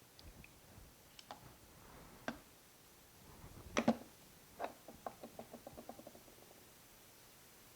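Scattered clicks and knocks of tools and parts being handled on a workbench, with a louder double knock about halfway through, then a small object bouncing in quickening, fading ticks until it comes to rest.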